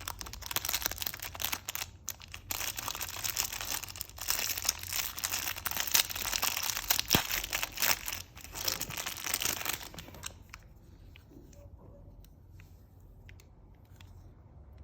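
Plastic packaging crinkling and tearing as a stationery parcel is unwrapped. The crinkling is continuous for about ten seconds, then stops, leaving only a few faint small clicks.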